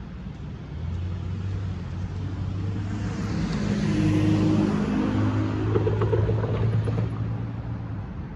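A road vehicle passing on the street. Its engine hum grows louder to a peak in the middle and then fades away.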